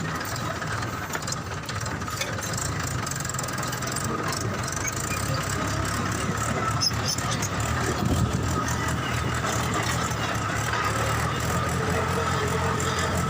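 Small battery-powered toy tractor running steadily as it tows a toy concrete mixer, giving a continuous engine-like drone with frequent small clicks.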